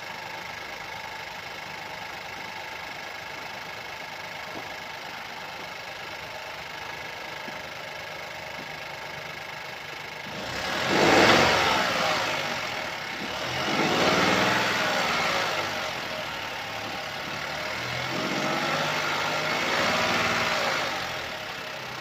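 Opel Astra K's 1.4-litre petrol engine idling steadily, then revved three times from about halfway through, each rev rising and falling away, the first the loudest. The engine noise comes from a stretched timing chain.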